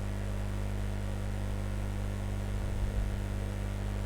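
Steady electrical mains hum with a faint hiss, with a soft low bump about three seconds in.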